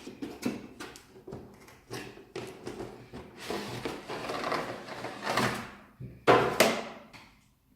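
Cardboard box being opened and its contents handled: sliding scrapes, rustling and light knocks, with the loudest scrape near the end.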